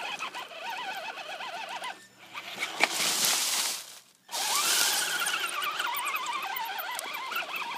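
Axial Wraith RC rock racer's electric motor and geared drivetrain whining, the pitch wavering up and down with throttle and load as it climbs, on a motor the owner calls bad and too slow. The whine drops out briefly about two seconds in and again about four seconds in, with a gritty hiss in the middle stretch.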